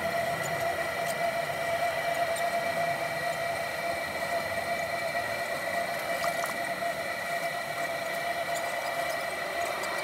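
Electric potter's wheel motor running with a steady high whine as the wheel head spins.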